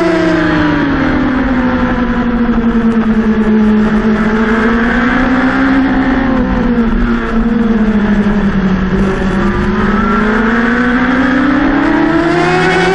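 Racing motorcycle engine heard from the bike's onboard camera under race conditions. The revs fall over the first couple of seconds, hold at middling revs through the corners, then climb steadily over the last few seconds as the throttle opens. Wind rush runs underneath.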